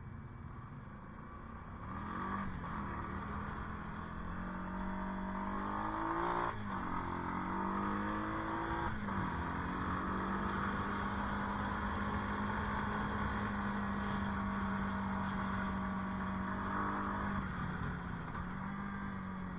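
ATV engine pulling away and accelerating, its revs climbing and dropping back twice, about 6 and 9 seconds in, then holding steady at speed before easing off near the end.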